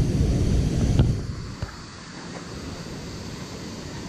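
Wind buffeting the microphone as a low rumble, with a sharp click about a second in, then dropping to a quieter, steady background hiss.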